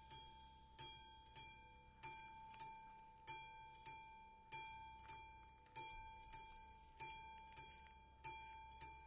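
Classic mechanical warning bell of an AŽD 71 level-crossing signal ringing steadily, about one strike every 0.6 s, each stroke ringing on and fading before the next. The crossing is activated, warning of an approaching train.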